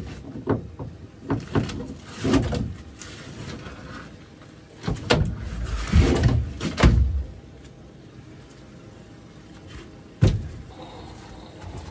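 Irregular knocks, scuffs and clatter of fishing gear being handled on a boat, with one sharp knock about ten seconds in.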